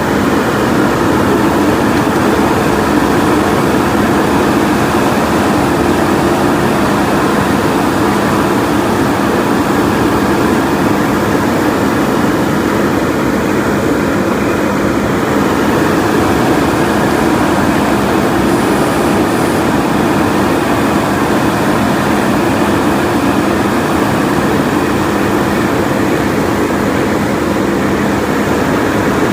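JCB backhoe loader's diesel engine running steadily and loudly, with a constant low hum and no change in speed.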